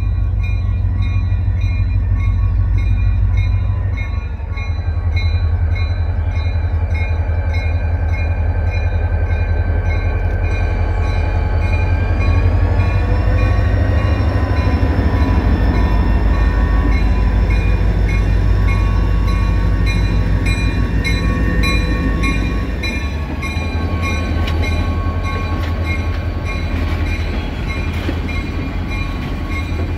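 EMD SD40 diesel-electric locomotive with a two-stroke V16 engine, running with a strong steady low throb as it pulls the train in slowly. A higher whine rises about midway and falls again later on.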